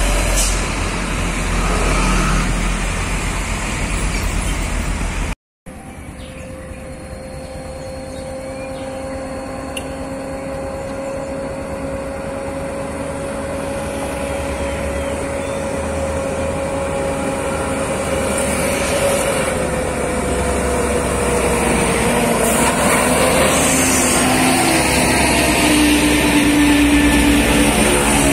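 Volvo FM12's 12-litre straight-six diesel engine working slowly under a 98-ton transformer load, in traffic at first and then, after a brief dropout about five seconds in, approaching from a distance and growing steadily louder as it draws close. Its steady engine tone dips in pitch a few seconds before the end as it passes by.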